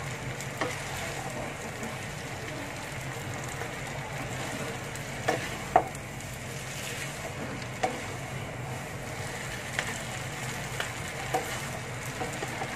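Mee goreng noodles sizzling in a wok as they are tossed and mixed with two wooden spatulas: a steady frying hiss with half a dozen sharp knocks of the spatulas against the pan, the loudest about halfway through.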